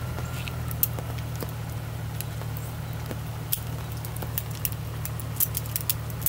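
Scattered light clicks and clinks of gear being handled at a shooting bench, more of them near the end, over a steady low hum.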